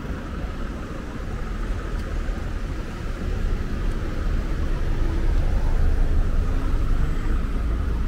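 Street traffic: cars and a van passing close at low speed, engines and tyres giving a steady low rumble that swells a little about halfway through.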